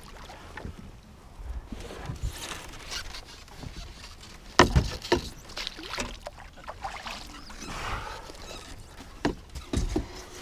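Knocks and bumps against a fishing boat's deck and side as a netted muskie is handled, with a few sharp thumps about halfway through and two more near the end.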